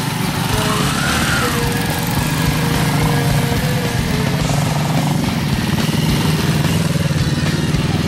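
Motorcycle engines running steadily at low speed, a loud low sound with a fast, even firing pulse.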